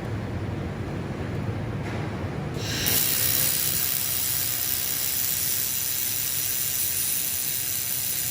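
Handheld laser welder with wire feeder running: a steady hiss starts about three seconds in and holds, over a low hum.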